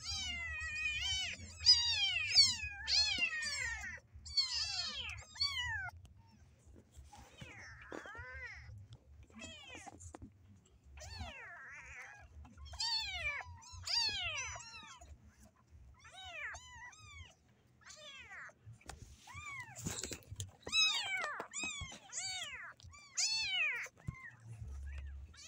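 A litter of young kittens meowing over and over, many short high-pitched cries that fall in pitch and overlap one another, loudest in bursts near the start, around the middle, and again toward the end.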